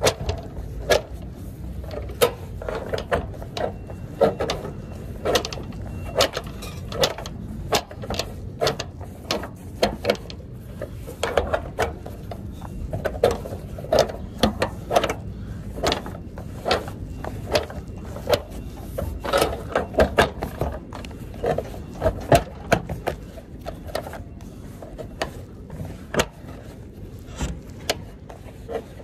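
TIR customs cable being pulled by gloved hands through the metal eyelets of a truck trailer's curtain-side tarpaulin: irregular clicks and knocks of the cable and metal rings, many a second at times.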